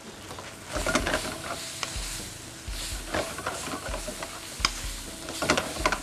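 A wooden spatula scrapes and tosses squid, shrimp and holy basil around a hot wok as the oil sizzles. The strokes are irregular and begin a little under a second in.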